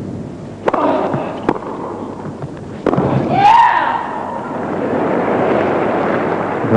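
Tennis ball struck by rackets three times in a rally, a short shout, then steady arena crowd applause and cheering.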